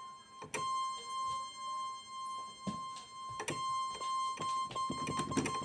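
A high, piano-like electronic tone played over and over, each note struck and fading away, about one a second. Denser, lower sound joins in near the end.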